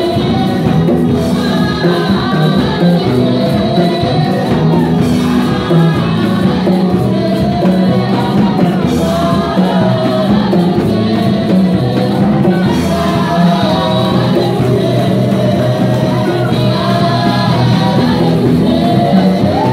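Live gospel praise music: several women singing lead and harmony into microphones over a band of electric keyboard, bass guitar and drums, playing steadily and loudly.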